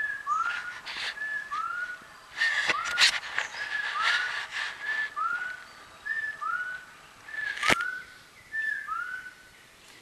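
Jungle animal calls: a steady series of short, arching whistled notes alternating with a higher flat note. A few sharp clicks come about three and eight seconds in, and the calls thin out near the end.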